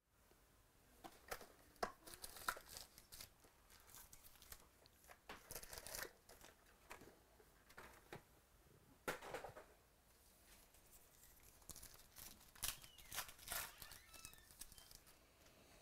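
Trading card pack wrappers being torn open and crinkled, with the cards handled: an irregular string of short tears, rustles and clicks.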